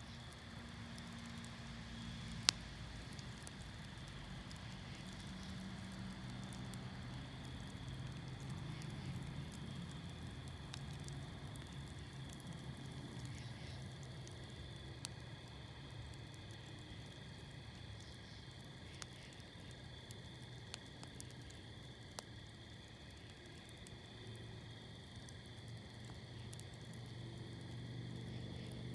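Wood fire crackling with scattered sharp pops, one loud pop about two and a half seconds in, over a steady chorus of crickets chirping. A low hum runs underneath.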